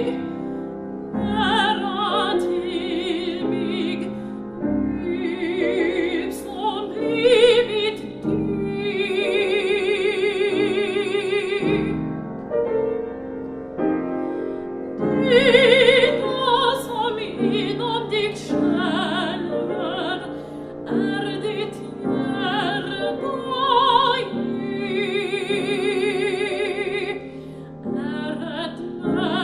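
Classical soprano singing a Swedish art song in operatic style with piano accompaniment, long notes held with a wide vibrato.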